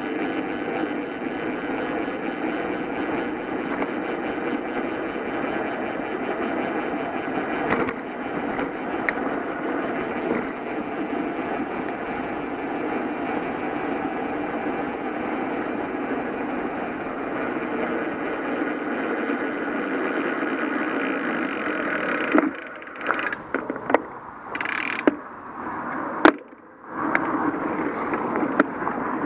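Steady dull rush of wind and tyre noise on a bicycle-mounted action camera while riding. Near the end the rush drops out in stretches and a few sharp clicks cut through.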